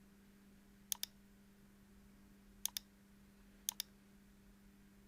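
Computer mouse button clicks: three pairs of quick clicks at uneven intervals, over a faint steady electrical hum.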